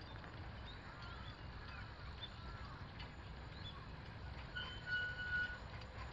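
Small narrow-gauge steam locomotive running past with a low rumble, and one short blast of its whistle, a steady high note about a second long, near the end.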